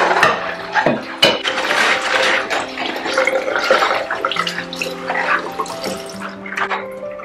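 Tap water running into a sink and splashing over a glass being rinsed under it by rubber-gloved hands, with scattered small knocks of the glass. Soft background music with held notes plays along.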